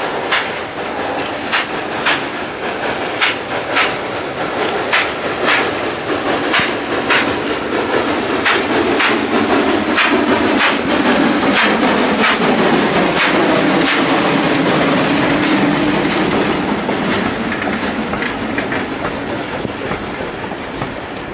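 Steam locomotive working hard with a steady run of sharp exhaust chuffs. As it passes close, a loud rushing rumble swells and its pitch slowly falls. Its loaded open coal wagons then roll by with wheel clacks while the sound fades.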